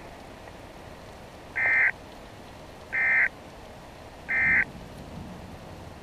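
Three short, buzzy data bursts about a second and a half apart, played through a radio: the NOAA Weather Radio SAME end-of-message code that closes the severe thunderstorm warning broadcast.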